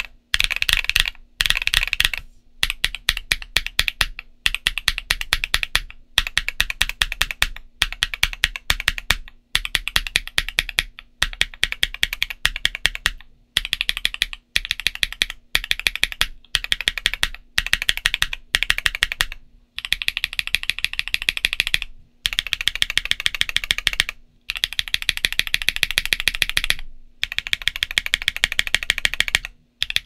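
Typing on a stock Portico68 keyboard with MMD Princess Linear 53 g switches and Cherry-profile ABS keycaps: rapid keystroke clacks in runs of a second or two, broken by brief pauses.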